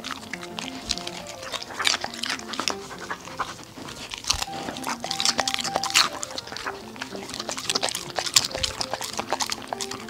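Samoyed panting and smacking its lips with many short wet clicks, over light background music with a simple stepping melody.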